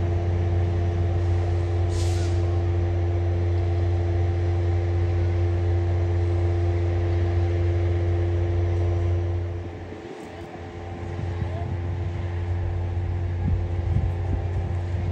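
Alco RS-1 diesel locomotive running steadily as it pulls its train away, a deep engine drone with a steady tone above it. A short air hiss comes about two seconds in. The sound drops away briefly around ten seconds in, then returns.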